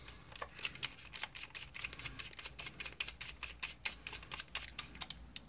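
Hand screwdriver driving a small screw into the plastic housing of a car climate control unit, with a quick, uneven run of small clicks, several a second.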